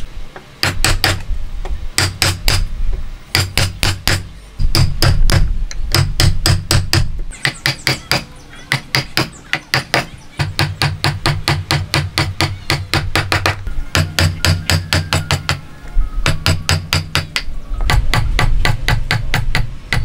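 A wood chisel driven into a timber block by repeated hammer blows, chopping out a joint notch: quick runs of sharp strikes, about five a second, with short pauses between runs.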